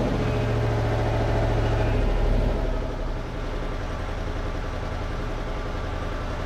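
Dennis RS130 fire engine's diesel engine running, heard from inside the cab while the truck rolls slowly along. The engine note drops to a quieter, steady level about two and a half seconds in.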